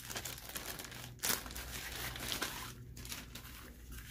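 Clear plastic packaging bag crinkling and rustling as it is pulled open and a folded green-screen sheet is drawn out and handled, with a sharper crackle about a second in and softer rustling later.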